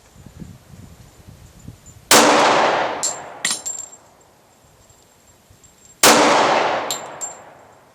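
Two .45 ACP shots from a Glock 30 pistol, about four seconds apart. Each shot rings out long and fades under a tin roof, and a few light metallic clinks follow each one.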